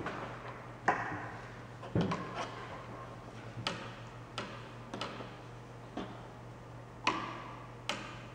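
Irregular light clicks and knocks, roughly one a second, of brushes and dishes being handled at a painting table, the sharpest about a second in.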